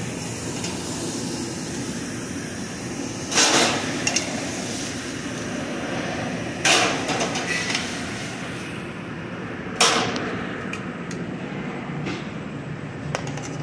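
Steady hiss and hum of a commercial char grill and kitchen ventilation, broken by three sharp metal clatters a few seconds apart as steel tongs work flank steaks on the grill grates. The high hiss thins near the end.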